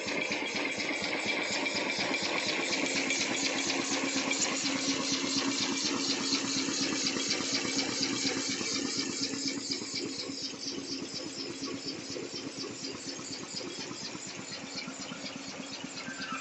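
Shenglipack automatic foil wrapping machine running: a rapid, even mechanical clatter over a steady motor hum, easing slightly in loudness partway through.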